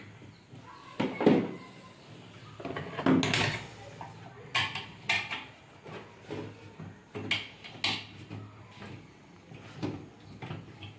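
Irregular clicks, knocks and short scrapes of a screwdriver and soldering iron working against the metal chassis and circuit board of an opened inverter welding machine, the two loudest about one and three seconds in.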